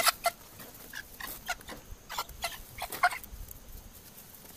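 Puppy scuffling with a rooster, giving a rapid string of short, sharp yips that die away after about three seconds.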